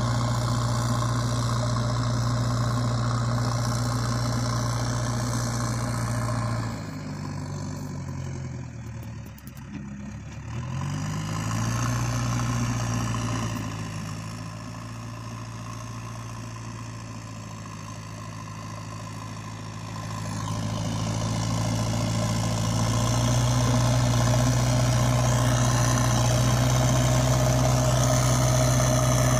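Engine idling steadily. Its pitch and level sag about seven seconds in and pick back up a few seconds later, and it grows louder again near the end.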